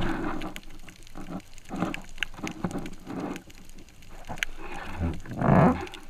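Muffled underwater sound picked up by an action camera in its waterproof housing, the swish and gurgle of water as the spearfisher swims. It swells and fades irregularly, with a few sharp clicks and the loudest surge near the end.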